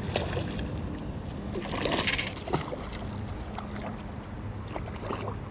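Kayak paddle strokes splashing in the water, the biggest splash about two seconds in, with a few light knocks of paddle on the hull. Crickets chirring steadily in the background.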